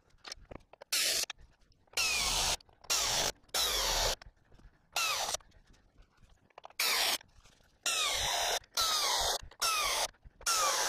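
Impact wrench run in about ten short bursts, each around half a second, tightening half-inch bolts on a wooden tractor carry-all.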